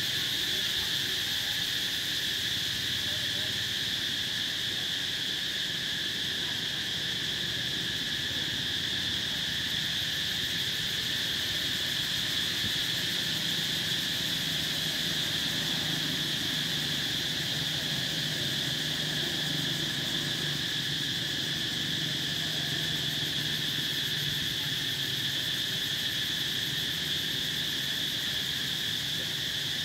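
Steady chorus of insects, a continuous high-pitched drone that never breaks.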